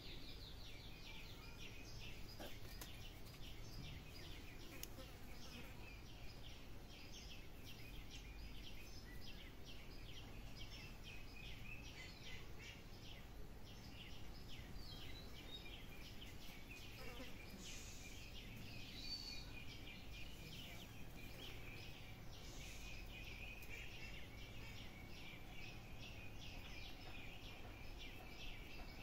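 A group of ducklings peeping without a break, many short high peeps overlapping.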